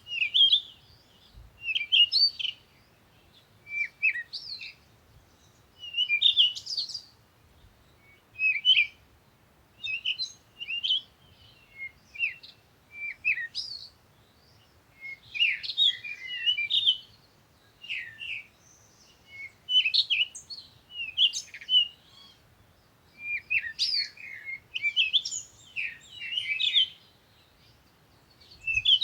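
Birds chirping and twittering in short, high phrases every second or two, with brief pauses between.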